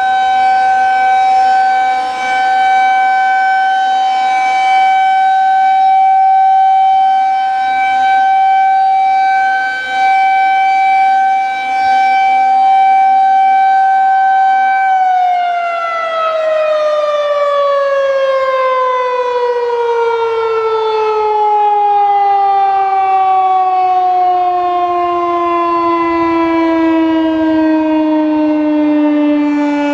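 Federal Signal 2001-130AC rotating electromechanical warning siren sounding a loud, steady single tone. About halfway through it is switched off and winds down, the pitch falling in one long, slow glide.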